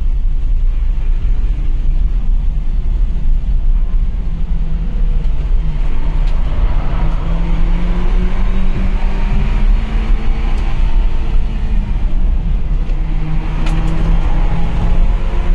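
BMW engine heard from inside its cabin at speed, its pitch rising and falling as the car accelerates and eases off, over a heavy, steady rumble of road and wind noise.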